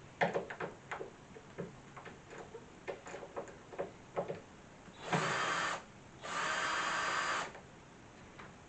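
Power drill-driver run in two short bursts, the second longer, backing out the screws of a doorknob. Before the bursts come a string of light clicks and knocks.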